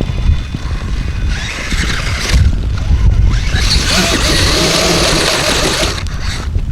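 Wind buffeting the microphone, with a radio-controlled off-road car's motor whining and its tyres hissing from about a second in until near the end.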